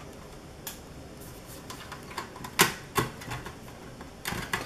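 Sharp clicks and taps from fingers turning out the thumbscrew feet on the underside of a fanless mini PC and handling its perforated case: a faint click about a second in, two louder ones about half a second apart in the middle, and a quick cluster near the end.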